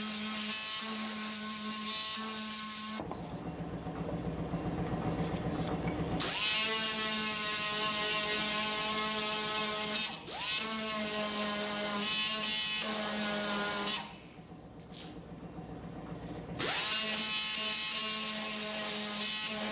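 Small handheld power sander running with a steady high whine as it sands the carved handle of a wooden cup. It stops and starts several times, each restart a quick rising whine.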